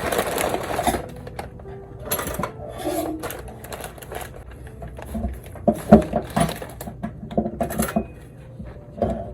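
Irregular clicks, knocks and rustles from roses and a vase being handled, with a louder rustling stretch in the first second.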